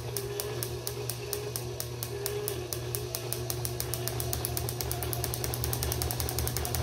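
Rebuilt Delco-Remy distributor on a test stand firing a spark gap: a regular series of sharp snaps, about five a second, speeding up through the second half to about ten a second as the drive speed is raised. A steady hum from the tester's drive motor runs underneath. The clean, even snapping shows the overhauled distributor sparking properly.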